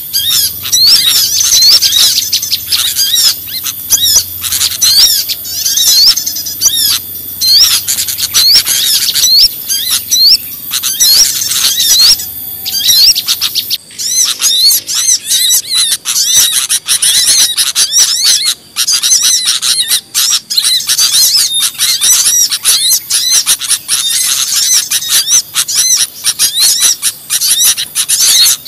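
Bird-lure recording of many small birds chirping and twittering at once, a dense, high, unbroken chatter. About halfway through the mix changes to a choppier run of short calls.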